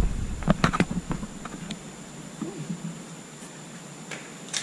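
A few light knocks in the first second, then quiet workshop room tone with a faint steady high whine.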